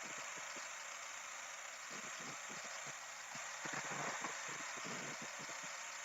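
1998 Mazda 626's 2-litre engine idling roughly, with uneven pulses that swell twice as the idle speed rolls. The owner ties the rough idle to retarded timing.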